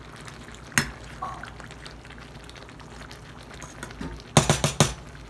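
A cube steak and broccoli stir fry simmering in gravy in a stainless pot, with a metal spoon clinking against the pot once about a second in and in a quick run of clinks near the end.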